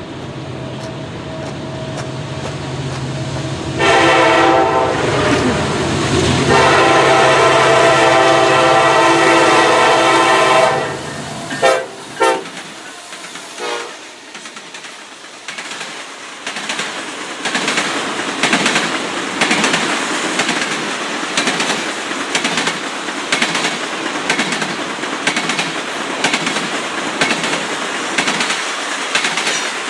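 Train passing: a low rumble builds, then a loud multi-note horn sounds for several seconds followed by a few short blasts, and the wheels go on clattering in a regular rhythm over the rail joints.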